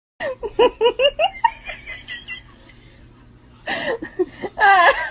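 A person laughing in a run of short, rhythmic 'ha-ha' bursts, about four a second, fading after a second or so. Near the end comes a louder, wavering outburst of voice.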